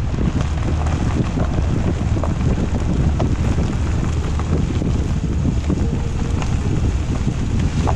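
A vehicle driving along a gravel dirt track, heard from a camera mounted on its outside by the front wheel: wind buffeting the microphone over the rumble of the tyres rolling on gravel, with many small ticks of stones.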